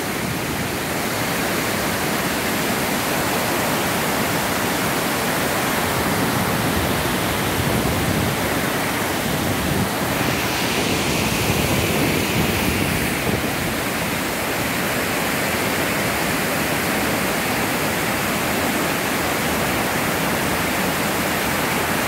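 Water overflowing a dam spillway, a broad sheet pouring down the sloping concrete face into churning white water: a steady, even rush of water, a little brighter and hissier for a few seconds about halfway through.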